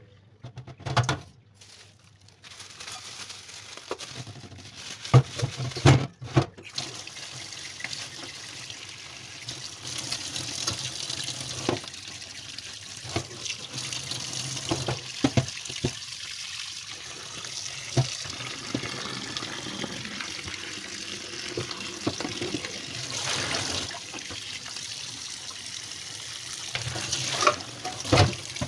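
Kitchen tap running into a stainless steel sink as raw meat is rinsed in a steel bowl and a mesh colander, with knocks and clatters of metal against the sink now and then, loudest about five seconds in.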